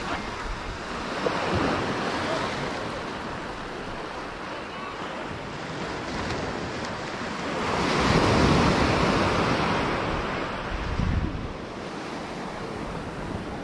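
Small shore-break waves washing up and over a sandy beach in a steady hiss, with one louder wave rushing in about eight seconds in and fading over the next couple of seconds.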